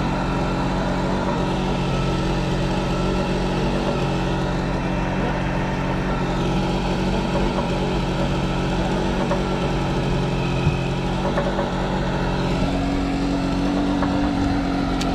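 Boat engine running steadily at low speed, a constant hum whose note shifts slightly about twelve seconds in.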